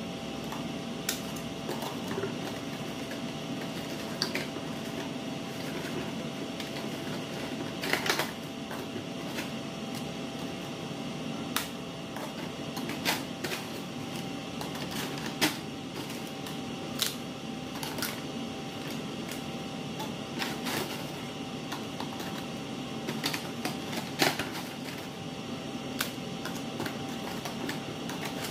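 Crisp fried prawn crackers clicking and clattering as they are handled and dropped into a plastic jar, in irregular sharp clicks every second or two, the loudest about eight seconds in. A steady hum runs underneath.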